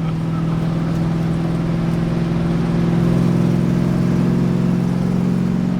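Carbureted V8 in a 1977 Datsun 280Z running hard at high, near-steady revs. It grows a little louder over the first few seconds, then holds.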